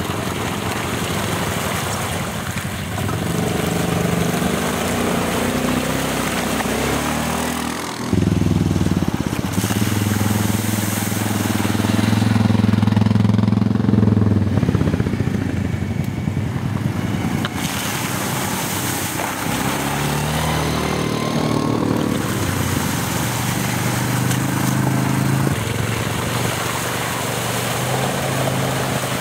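ATV (quad bike) engines running and revving as the quads drive through muddy water puddles, with splashing. The engine note shifts and changes abruptly a few times.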